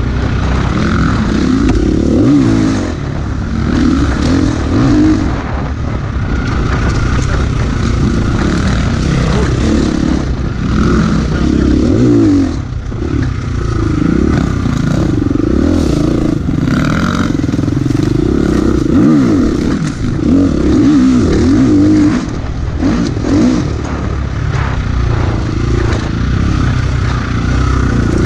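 Husqvarna FE350's 350 cc single-cylinder four-stroke engine, uncorked with a Power Bundle kit, revving up and down over and over as the throttle is worked on a trail ride. Rattles and rushing noise from the moving bike run under the engine.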